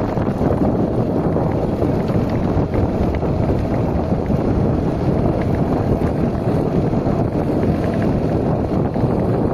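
Steady, loud rumbling of wind buffeting the microphone, with no pitched engine sound standing out.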